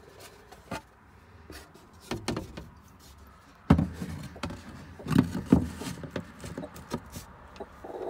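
Hands knocking and scraping against the wooden coop boards and nest box while reaching under a sitting hen for her egg. The loudest knock comes about halfway through and two more follow close together. Near the end a hen starts clucking.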